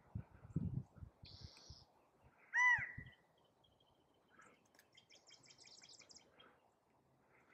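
Male California quail giving one loud call about two and a half seconds in. Other birds chirp faintly, with a quick run of high notes later on. There are a few soft low thumps in the first second and a half.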